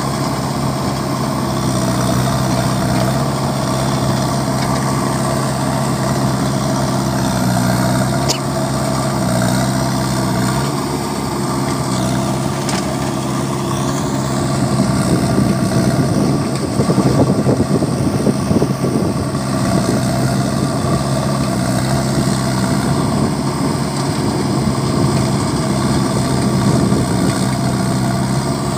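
JCB 3DX backhoe loader's diesel engine running steadily while the backhoe digs. About halfway through it runs louder and rougher for several seconds.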